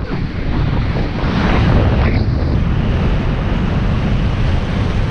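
Loud, steady wind rushing and buffeting over the microphone from the airflow of a paraglider in flight.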